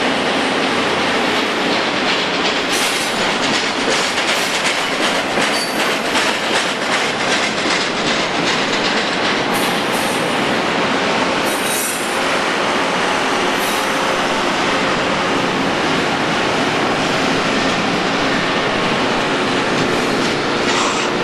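Union Pacific double-stack container train's well cars rolling past at close range: a steady, loud rumble of steel wheels on rail with clicks over the joints and brief high wheel squeals now and then.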